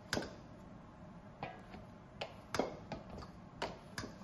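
Hands gathering and lifting kneaded naan dough out of a stainless steel mixing bowl, with several short, sharp knocks and clicks as the metal bowl is touched and shifts on the worktop.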